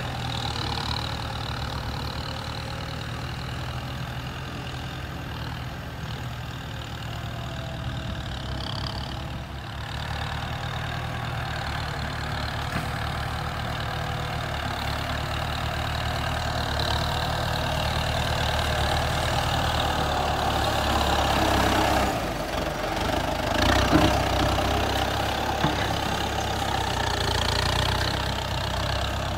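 Kubota M9540 tractor's 95-horsepower diesel engine running steadily under load as its front dozer blade pushes soil, growing louder through the middle of the stretch, with one sharp knock about four-fifths of the way through.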